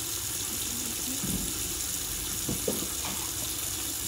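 Kitchen faucet running in a steady stream into a sink of standing water, splashing among floating apples as the sink fills. A few light knocks come through it partway through.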